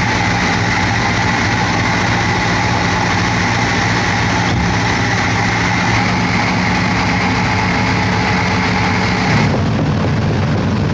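Heavy diesel engine running steadily, with a steady high whine over it that cuts off shortly before the end.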